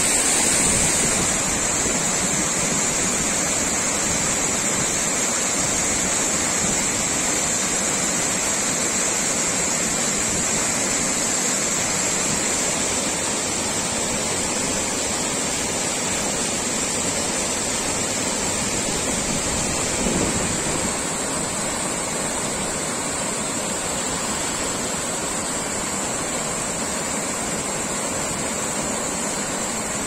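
Water of a small mountain river rushing and splashing over boulders and low cascades: a steady rushing noise.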